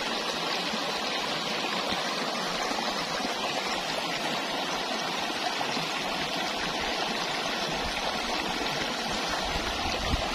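Shallow river water flowing steadily over a rocky riffle, an even rushing and burbling.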